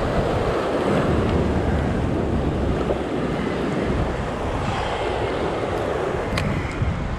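Surf breaking and washing over a rocky shoreline, with wind rumbling on the microphone. A sharp click comes near the end.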